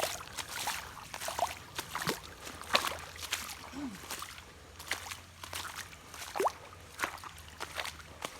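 Shallow creek water splashing and sloshing irregularly as someone wades through it, with small bubbling gurgles and a trickle of running water.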